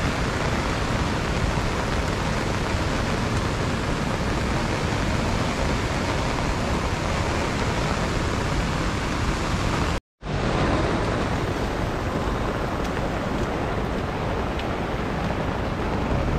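Steady rain falling, an even rushing hiss with no distinct drops or rhythm. About ten seconds in it cuts out for a fraction of a second, then carries on slightly duller.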